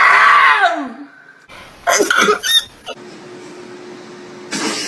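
A person's voice making exaggerated mock sneezes and cough-like sounds: a loud drawn-out cry at the start with its pitch arching up then down, a few short bursts about two seconds in, and a noisy burst near the end.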